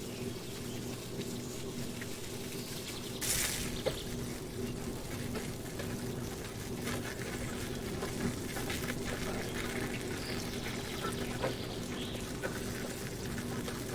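Water trickling and splashing, with a short louder splash about three seconds in and a few light clicks and knocks; a steady low hum runs underneath.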